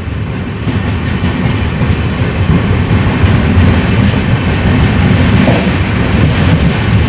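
Passenger train running on the rails, heard from on board as a steady rumble of wheels and coaches. It grows louder over the first few seconds.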